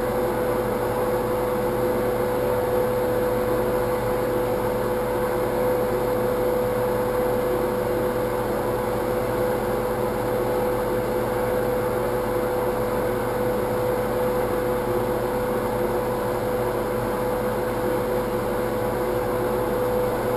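Steady mechanical hum with a constant mid-pitched tone, even in level throughout.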